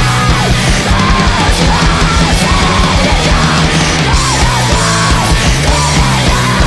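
Screamo band recording playing loud and steady: a repeating arching melodic figure over dense drums and bass.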